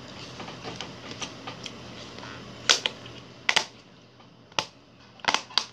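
Scattered sharp clicks and taps, about half a dozen, mostly in the second half, from a plastic spoon and a thin clear plastic food container and lid being handled.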